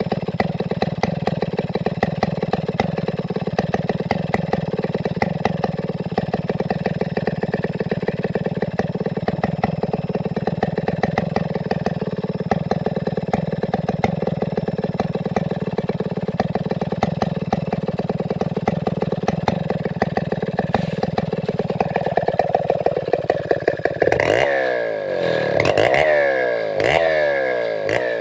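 Large two-stroke chainsaw of the Stihl 070 type running steadily, then revved about four times near the end, its engine speed jumping up and falling back each time.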